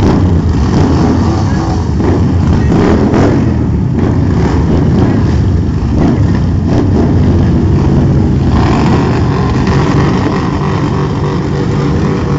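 Harley-Davidson V-twin motorcycle engine running loudly, with a steadier pitched note from about eight and a half seconds in.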